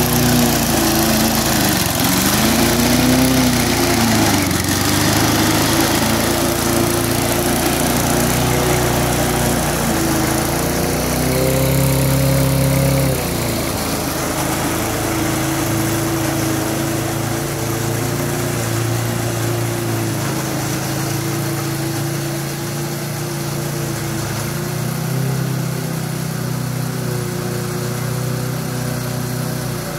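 Small petrol engine of a homemade radio-controlled lawn mower running steadily, its pitch dipping and rising again a few times. It grows a little quieter about halfway through as the mower drives away.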